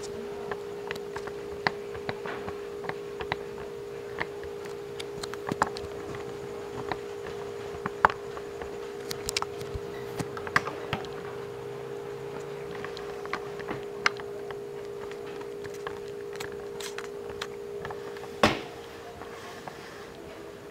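A steady low hum runs throughout, with scattered light clicks and ticks. There is one louder knock near the end.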